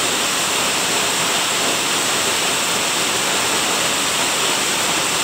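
Waterfall rushing: a steady, even wash of falling water, with no breaks or changes.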